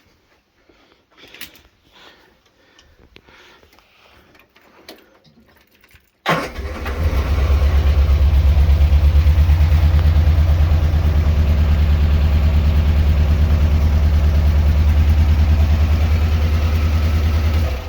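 A Morris Minor's four-cylinder BMC A-series engine running steadily with the number 3 plug lead off, which makes no difference to how it runs: the sign that cylinder 3 is the dead, misfiring one. The engine comes in abruptly about six seconds in, as an even low pulsing, after a few faint clicks and handling noises.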